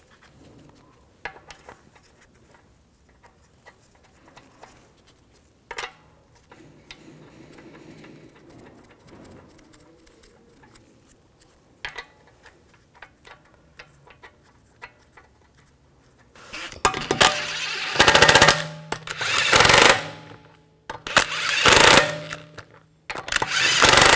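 Cordless impact wrench spinning in and hammering on the wheel's lug bolts in several loud bursts about a second long, starting about two-thirds of the way in, snugging the bolts before they are torqued by hand. Before that, faint metal clicks as the bolts are threaded in by hand.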